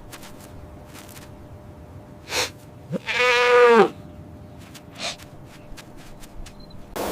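A single bleat from a goat or sheep, about a second long, loud and wavering in pitch, with soft rustles and knocks around it.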